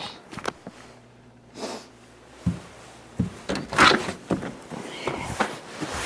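Footsteps crunching through deep wet snow: a quieter stretch, then a run of uneven crunching steps from about two and a half seconds in.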